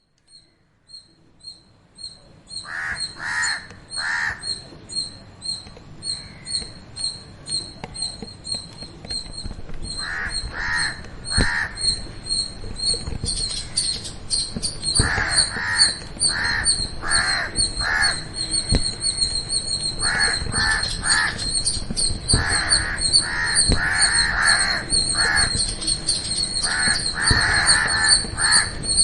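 Birds calling: runs of three to five harsh, caw-like calls every few seconds, over a high, fast, evenly repeated chirping that grows denser about halfway through. The sound fades in over the first two seconds.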